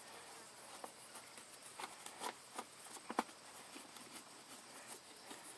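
Faint clicks and light taps of a screwdriver working the screws out of a portable generator's plastic side cover, the sharpest about three seconds in, over a steady low hiss.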